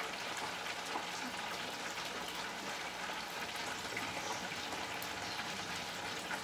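Chicken wings frying in hot oil: a steady crackling sizzle with faint scattered pops.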